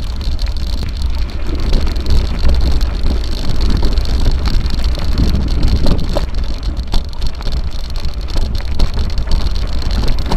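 Mountain bike rolling over a gravel track: steady tyre noise on loose stones with scattered rattles and knocks, under heavy wind rumble on the microphone.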